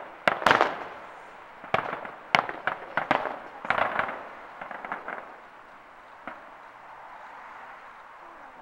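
Fireworks bursting in a finale: a rapid run of sharp bangs and crackling over the first four seconds or so, thinning to a few scattered pops, then one last bang a little past six seconds before it dies away.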